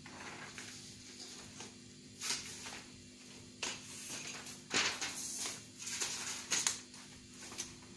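Sheets of paper rustling and crackling as sheet music is shuffled and handled, in several short bursts, the loudest about five to seven seconds in.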